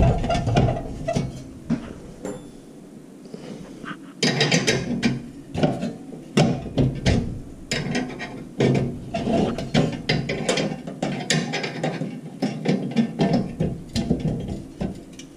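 Wrench and metal parts clicking and tapping in irregular bursts as a brass propane gas-line fitting is threaded on and tightened on a portable heater, with handling noise between the clicks.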